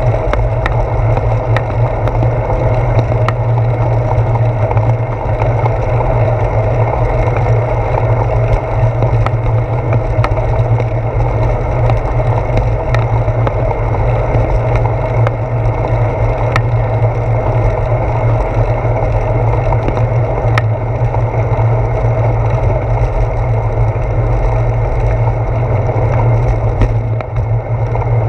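Steady low rumble of a moving bicycle, picked up by a handlebar-mounted GoPro Hero 4: wind on the camera and tyre and road vibration through the bars. Small clicks and rattles from bumps in the path are scattered throughout.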